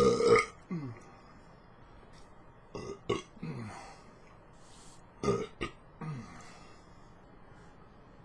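Loud burps, three in a row about two and a half seconds apart, the first the loudest, each trailing off with a falling pitch.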